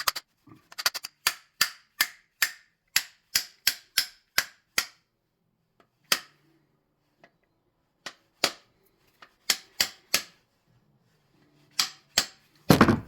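Piston and connecting rod of a diesel engine being fitted together and turned by hand: a run of sharp clicks, about three a second, for the first few seconds, then scattered single clicks and a louder knock near the end.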